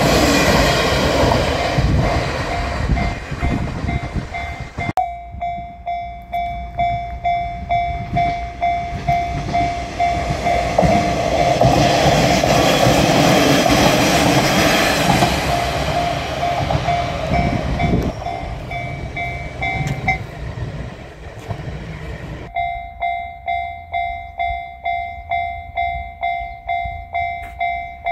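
Japanese level-crossing alarm ringing its repeating electronic bell, about one and a half rings a second, while a diesel railcar runs past over the crossing. The railcar is loudest through the first few seconds and again about halfway. The bell breaks off for a couple of seconds about twenty seconds in, then rings on.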